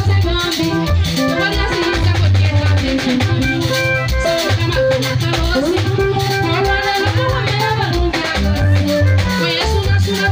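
Live band music: electric guitar and bass over a steady drum beat with a shaker, and a woman singing into a microphone through the PA.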